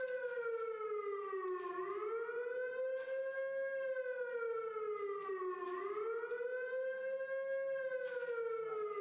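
Bunker-alarm siren wailing, its pitch rising and falling slowly about once every four seconds: the warning to take cover in the bunkers during an attack on the camp.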